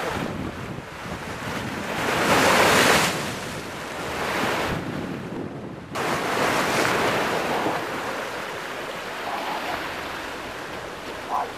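Wind buffeting the microphone over the wash of sea waves, coming in gusts with the strongest about two to three seconds in and a sudden brief drop just before halfway.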